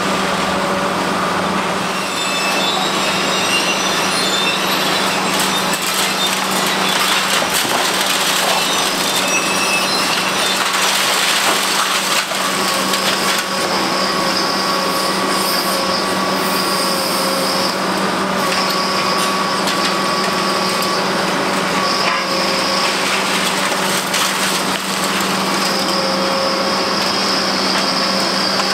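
Kobelco SK850 demolition excavators at work: a steady engine hum under the irregular crunching and cracking of concrete being crushed in the attachment's jaws. About halfway through, a high metallic squeal starts and comes and goes until near the end.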